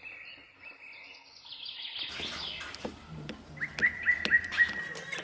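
Birds chirping: short, repeated chirps, then a quick run of about six chirps near the end, with a few faint clicks.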